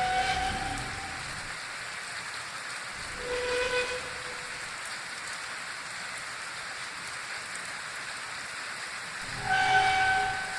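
Unexplained distant horn-like tones in the sky, sounding three times for about a second each. The middle one is lower in pitch than the other two. A steady hiss runs underneath.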